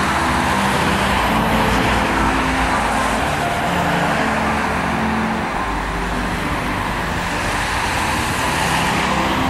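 City street traffic: cars driving by with a steady rush of tyre and engine noise.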